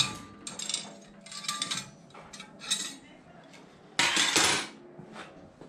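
Steel rods clinking and scraping against a metal bench vise and steel workbench as they are handled: several short bursts, the loudest about four seconds in.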